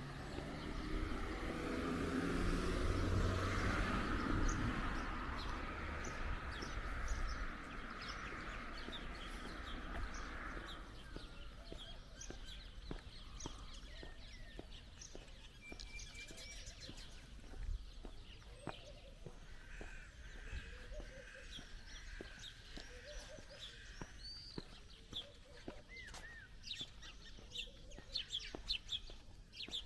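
Small birds chirping and trilling, busier in the second half. In the first third a broad rushing noise swells, loudest a few seconds in, then fades out.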